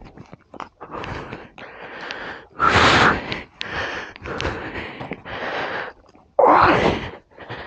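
A man's heavy, strained breathing close to the microphone: a string of hard puffs and exhales from the effort of pulling a loaded motorcycle, the loudest about three seconds in and again near the end.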